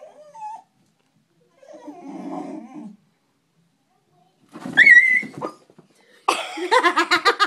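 Frightened dog whimpering and growling: a short whine, a low rumbling growl about two seconds in, then a high rising whine about five seconds in. A person's laughter starts near the end.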